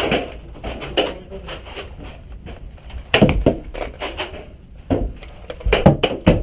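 Irregular sharp clacks and knocks close to the microphone, several coming in quick pairs, with a steady low background between them.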